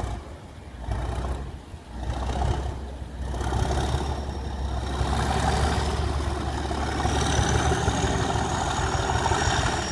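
Class 37 diesel-electric locomotive's English Electric V12 engine powering up as it pulls away, a deep heavy throb that grows louder in steps over the first few seconds and then holds. A thin high whistle comes in near the end.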